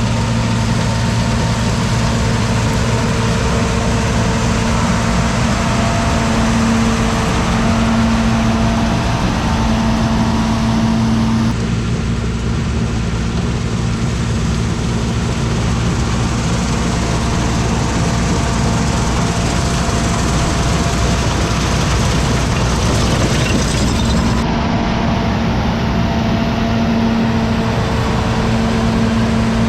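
Turbocharged John Deere 6620 combine running at a steady engine speed while harvesting soybeans, a constant low drone with machinery hiss over it. The hiss changes abruptly twice, about 12 and 24 seconds in.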